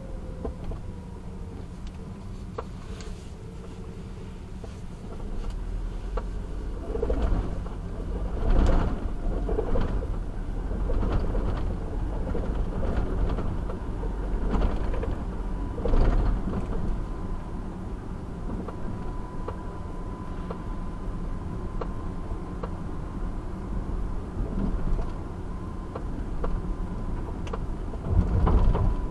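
Car driving in city traffic: a steady low road-and-engine rumble that grows louder about five seconds in, with a few brief louder swells as vehicles pass or the car runs over bumps.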